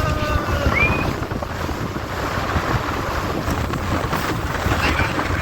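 Wind buffeting the microphone on a moving boat, a steady rough rumble with a rush of air and water over it.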